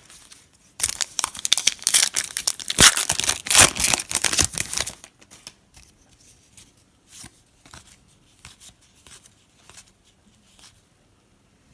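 Plastic trading-card pack wrapper torn open and crinkled, loud for about four seconds starting about a second in, then faint soft rustles and ticks of the cards being handled.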